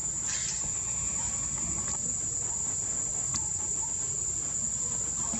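Insects droning steadily at one high, unchanging pitch, over a low rumble, with a couple of faint clicks.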